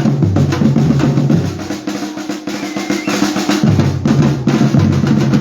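Batucada percussion group drumming: a dense, fast rhythm of snare drums over low bass drums.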